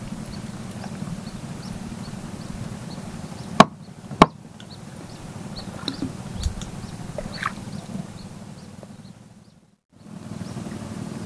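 Two sharp knocks on a wooden boat, about three and a half and four seconds in, while a hand line is hauled in. Under them runs a steady low hum with faint, repeated high chirps, and a few lighter clicks follow. The sound drops out briefly near the end.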